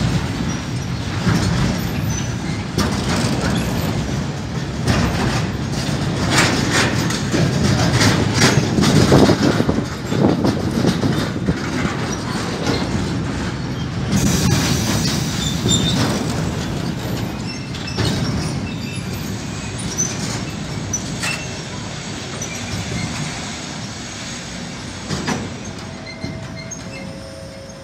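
Freight train of covered wagons rolling past close by: a steady rumble of wheels on rail with repeated clacks over the rail joints, slowly getting quieter toward the end.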